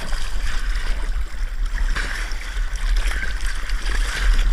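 Water sloshing and splashing around a kayak on open water, over a steady low rumble.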